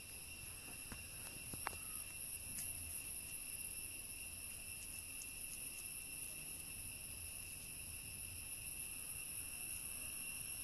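Steady high-pitched drone of insects, unbroken, with a few faint clicks in the first two seconds.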